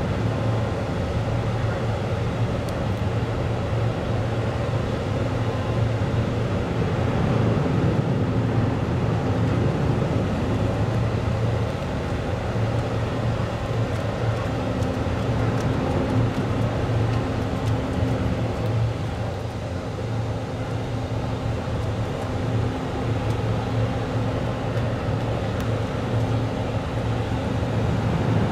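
Steady low drone of the car ferry Silver Queen's machinery as it berths, with a higher steady hum that drops out for a few seconds and returns.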